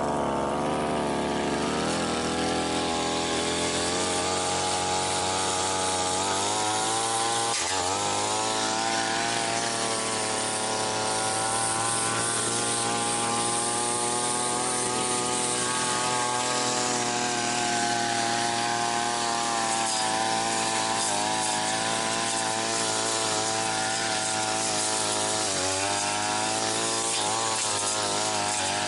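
Brush cutter engine running at high speed while the blade cuts through weeds. Its pitch sags briefly under load about a quarter of the way in and again near the end, then picks back up.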